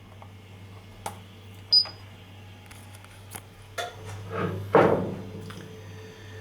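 Alarm system keypad giving one short high beep as a key is pressed, with a few light clicks around it and a brief rustle a little before five seconds in, over a low steady hum.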